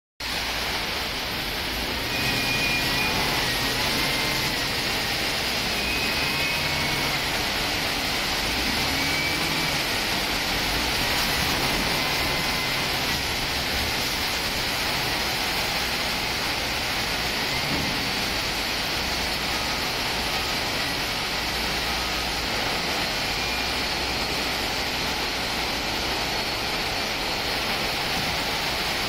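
Steady din of heavy machinery in a scrap-can recycling plant: a diesel grab handler's engine running under a constant rushing noise of plant equipment. A few faint short whistle-like tones come and go in the first ten seconds.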